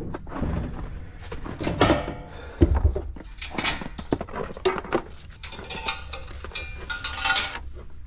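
Knocks, thunks and clatter of equipment and cases being handled and shifted around in the back of a service van, with a few knocks ringing briefly in the second half.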